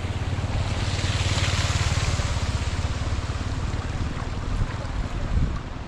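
Shallow water splashing and sloshing as a cast net is hauled in through it by hand, with a swell of splashing in the first few seconds. Wind buffets the microphone underneath with a low rumble.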